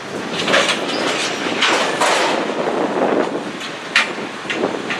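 Freight train of flatcars loaded with steel rail rolling slowly past, wheels clattering on the track, with several sharp metallic clanks, the loudest about four seconds in.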